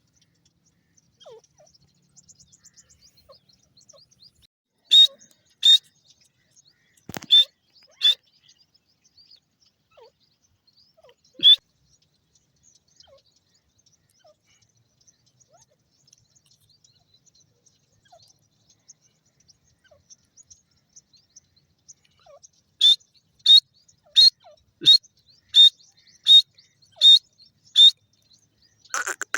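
Grey francolin calling: a few loud, high-pitched notes, then a run of about eight evenly spaced notes, roughly three every two seconds, near the end.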